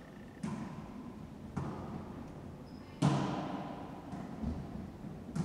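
Wallyball being struck and rebounding in a rally: four sharp smacks of the ball, each with a short echo off the enclosed court's walls. The loudest comes about three seconds in.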